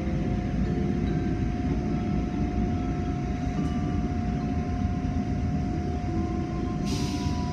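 Automatic car wash machinery heard from inside the car: a steady low rumble with a constant whine, and a short burst of hissing spray about seven seconds in.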